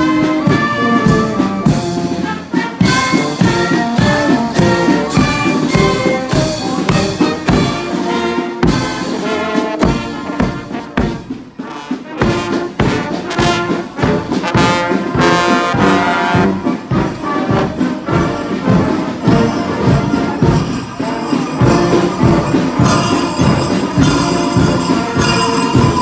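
Marching brass band playing loudly, trumpets, trombones, sousaphone and saxophone over a steady beat, typical of a Fasnacht Guggenmusik. Near the end, jingling bells come in.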